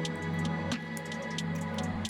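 Background music: sustained notes over a steady, ticking beat.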